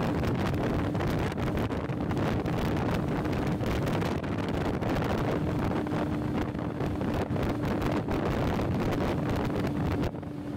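Wind buffeting the microphone of a moving motorcycle, over a steady engine hum. The wind drops briefly near the end.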